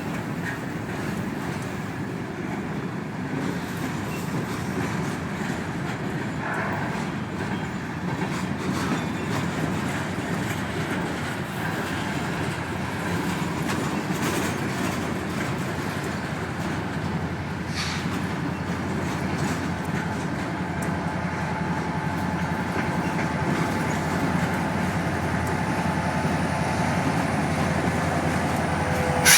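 Kansas City Southern manifest freight train cars rolling past, a steady rumble of wheels on rail with some clickety-clack. Faint high wheel tones come in near the end, and it ends with one sharp loud click.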